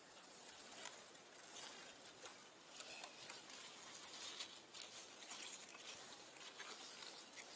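Near silence: a faint high hiss with scattered soft clicks and rustles.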